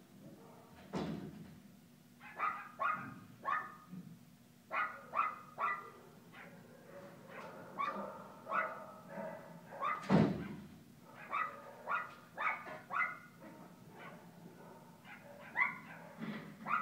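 Small dogs barking repeatedly in quick runs of three or four short barks, with a dull thump about a second in and another about ten seconds in.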